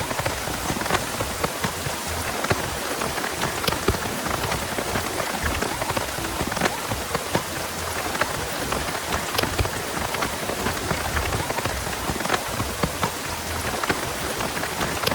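Heavy rain falling steadily, with many sharp individual drop hits scattered throughout.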